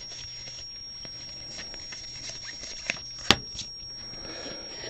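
Trading cards being handled and slid against one another: faint rustling with soft ticks, and two sharp clicks about three seconds in.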